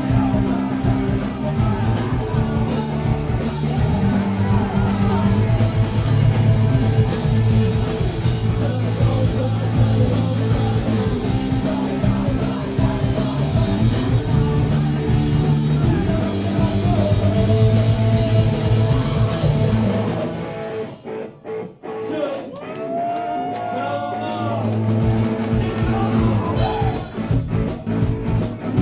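Live rock band playing with guitar, bass, drum kit and singing. About twenty seconds in, the drums and bass stop for a few seconds, leaving a lone sliding line, before the full band comes back in.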